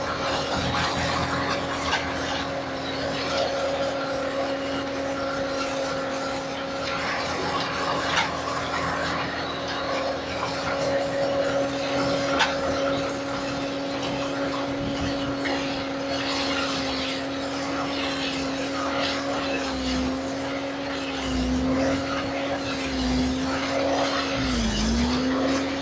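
Skid steer engine running steadily at high throttle. Near the end its pitch sags briefly four times, the last dip the deepest, as the engine takes load from the hydraulics working the tree and post puller.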